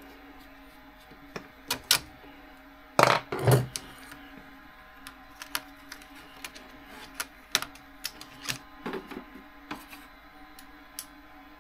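Hand tools and small RC car parts clicking and clattering on a workbench in scattered taps, with a louder burst of clatter about three seconds in.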